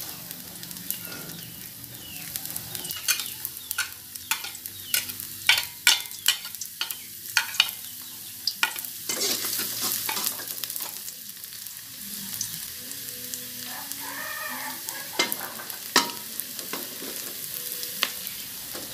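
Chopped shallots sizzling in hot oil in a wok, with a metal spatula scraping and clicking against the pan as they are stirred. The clicks come thickest in the first half.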